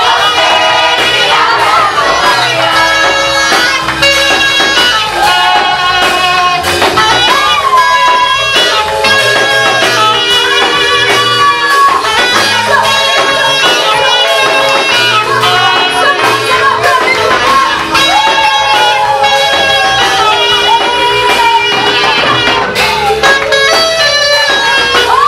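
Swahili gospel song: a voice singing a melody over a full instrumental accompaniment.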